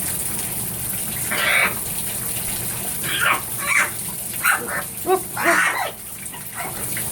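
Shower spray running steadily while a scarlet macaw gives about six short calls, spread over a few seconds.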